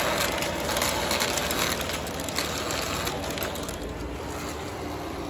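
Lionel O gauge passenger cars rolling past on three-rail track, the wheels making a rapid clatter of clicks over the rail joints and switches. The clicking thins out after about three and a half seconds and the sound slowly fades as the last car goes by.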